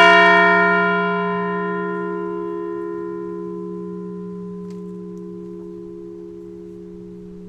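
A large Liberty Bell replica struck once, tolling in memory of a deceased veteran. It rings with a deep, slowly fading hum; the higher overtones die away within a few seconds while the low tones linger.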